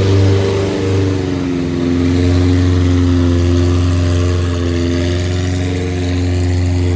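Boat engine running loud and steady close by, its pitch wavering slightly.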